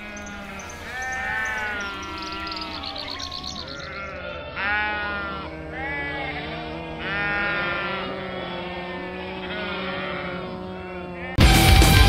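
A flock of sheep bleating, many calls overlapping one after another. Loud heavy-metal music with electric guitar cuts in suddenly near the end.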